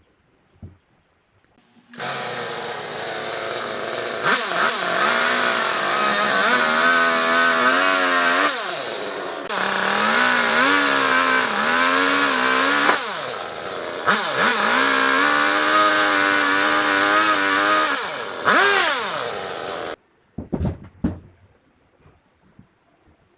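Chainsaw running and cutting wood, its engine pitch repeatedly sagging under load and recovering. It starts about two seconds in, dips briefly a few times, and stops abruptly near the end, followed by a few short knocks.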